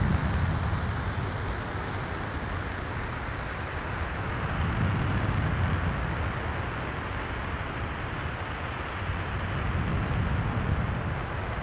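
RS-25 liquid-hydrogen/liquid-oxygen rocket engine in a sustained hot fire: a steady roaring hiss with a deep rumble underneath that swells and eases every few seconds.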